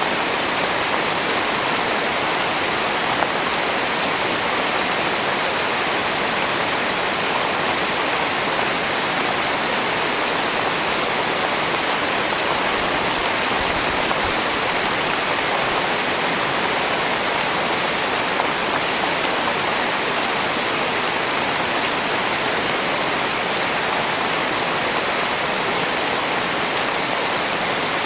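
Heavy rain pouring down steadily: a dense, even hiss with no let-up.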